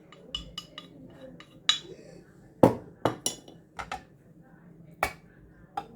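Kitchen utensils and containers clinking and knocking together: about a dozen sharp clinks at uneven intervals, the loudest a little before the middle, as the ground spice powder is handled into its storage container.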